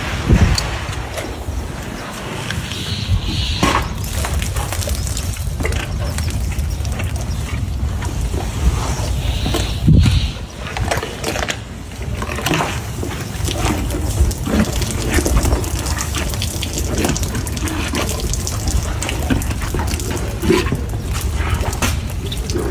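An African elephant crushing and chewing a whole watermelon: irregular wet crunches and squelches, over a steady low rumble.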